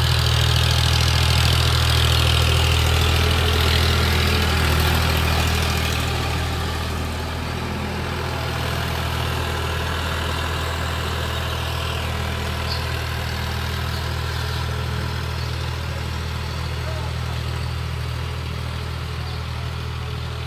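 Diesel tractor engine running steadily as it pulls a rotary tiller through the soil, a constant low drone. It grows somewhat fainter about seven seconds in as the tractor works away across the field.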